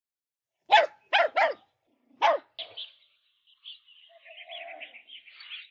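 A dog barking four times in quick, sharp yaps within about a second and a half.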